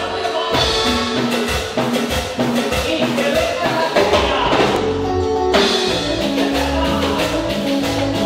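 Upbeat music with a drum beat and pitched instruments, shifting abruptly to a different passage about five and a half seconds in.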